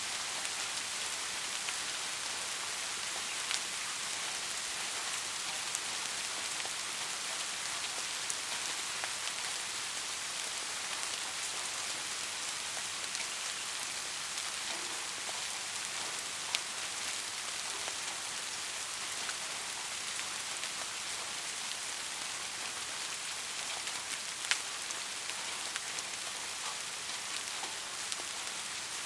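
Steady heavy rain, an even dense hiss with a few sharper drop clicks here and there.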